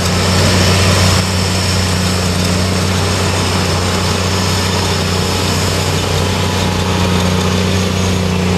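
Snow groomer's diesel engine running steadily with a deep, even hum, slightly louder for the first second or so.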